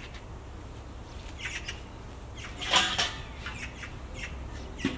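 Small birds chirping in short, scattered high calls over a low steady background rumble, with one louder, harsher sound about three seconds in.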